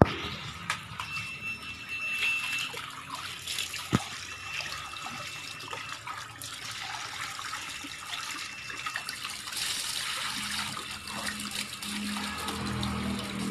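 Water running from a tap into a large plastic tub, with a few splashes and knocks as fish are rinsed in it.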